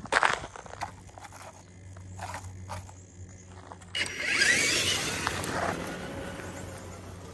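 Footsteps crunching on gravel, then from about four seconds in the whining electric motor of a Traxxas TRX-6 6x6 RC crawler towing another RC truck, with its tyres rolling over dirt and gravel; the whine falls in pitch, then the sound slowly fades.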